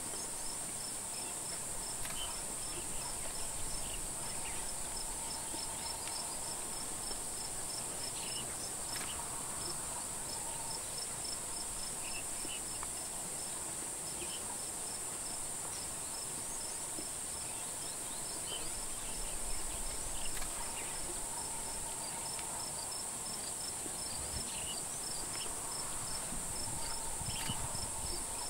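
Chorus of crickets and other insects: a steady high-pitched hiss with a fast, regular train of chirps running through it.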